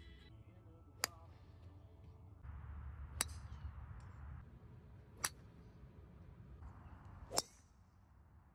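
Golf club striking a ball four times, one shot about every two seconds as the club changes from irons up through fairway woods to the driver. Each is a single sharp crisp click with a brief metallic ring.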